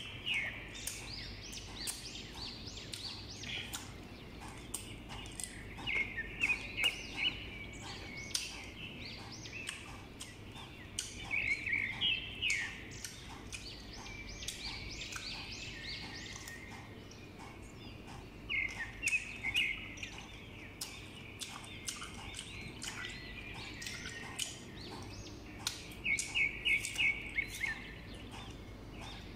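Close-up crunching and chewing of raw, sour green Indian mango slices, many sharp crisp clicks with louder clusters of crunching every several seconds as fresh bites are taken.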